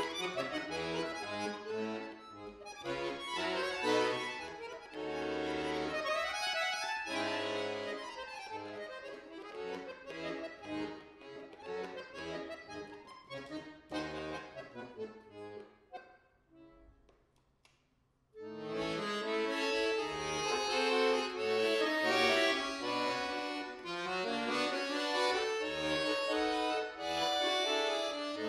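Bayan (chromatic button accordion) played solo with fast runs and chords. The playing falls away to a brief pause a little past halfway through, then comes back in loud with full chords.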